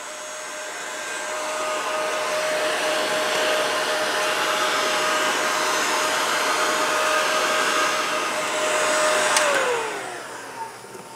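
Electric heat gun blowing steadily with a fan whine. About nine and a half seconds in it is switched off, and the whine falls in pitch as the fan spins down.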